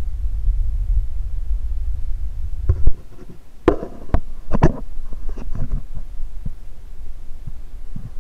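Muffled underwater sound picked up by a mini dash cam submerged in bathwater: a low rumble that cuts off about three seconds in, then several dull knocks and clunks as the camera is moved about in the tub.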